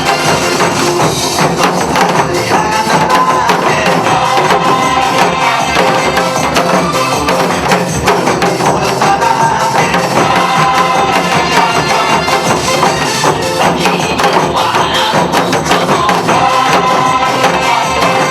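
Upbeat dance music with a steady beat, played along to by a group striking janggu drums in gogo janggu style.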